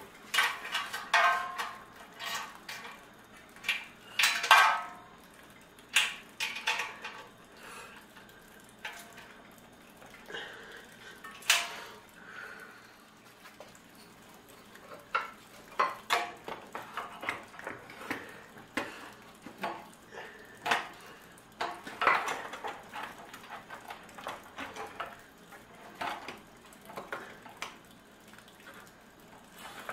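Irregular metallic clinks and knocks of hand tools and small metal parts handled against an engine and its mounting frame, with a few louder knocks.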